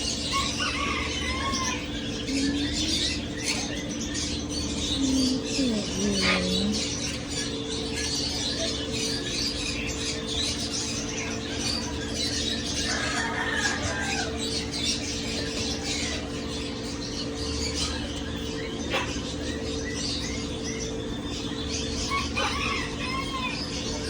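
Many caged birds chirping and squawking together in a continuous high chatter, over a steady low hum.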